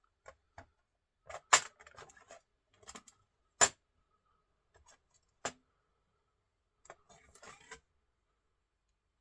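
Sharp clicks and light knocks of small hard objects being handled and set down, with two louder knocks about one and a half and three and a half seconds in and a short rattling cluster of clicks near the end.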